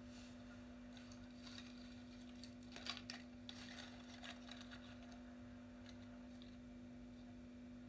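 Near silence: room tone with a steady low hum and a few faint, short clicks and rustles, the clearest about three seconds in.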